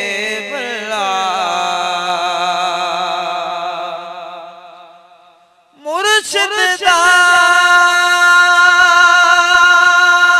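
Male voice singing a Sindhi naat in long, wavering held notes without clear words. The first held note fades away about five seconds in, and after a short gap a new phrase swells in and holds one long steady note.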